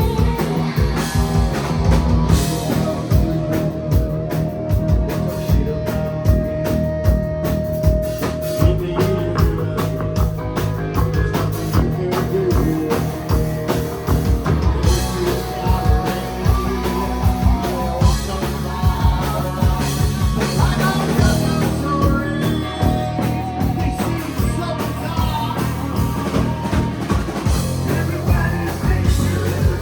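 Live rock band playing a song with a singer: drum kit, electric guitar and vocals, with a long, wavering held note a few seconds in.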